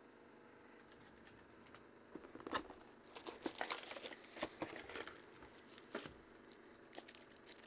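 Plastic wrapper of a trading card pack crinkling and tearing as it is opened by hand: a run of sharp, irregular crackles starting about two seconds in.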